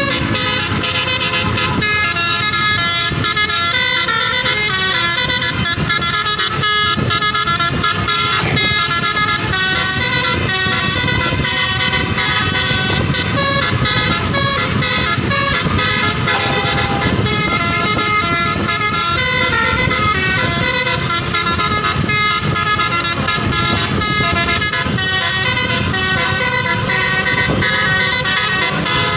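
Tour bus telolet horns playing a continuous run of rapidly changing musical notes, with bus engine and road noise underneath.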